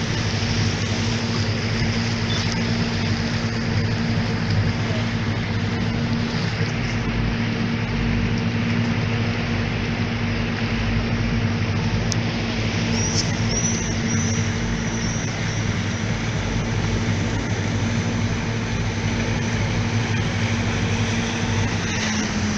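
Motorboat engine running at a steady cruising hum with water and wind rushing past, heard on board; near the end the engine note drops a little.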